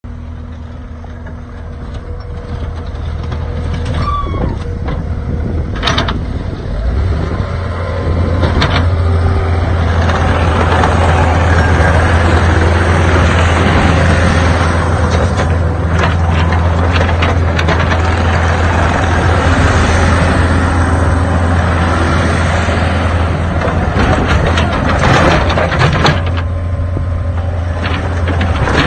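Takeuchi TL10 skid steer's diesel engine running. It grows louder over the first several seconds, then runs steadily at a higher pitch. A few sharp clanks and knocks are heard along the way.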